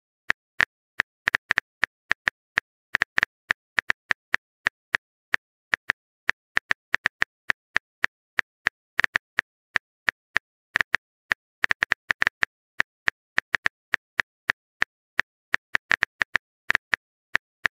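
Typing sound effect of a texting-story chat: sharp, dry clicks at an irregular pace of about four a second, sometimes in quick clusters, with dead silence between them.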